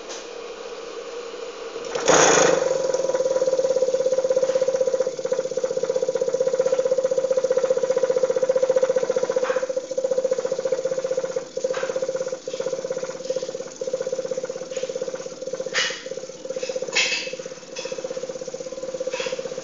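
Homemade vortex mixer, built from an AC fan motor, running with a steady hum that jumps sharply louder about two seconds in and stays loud. A few clicks and knocks come through later on.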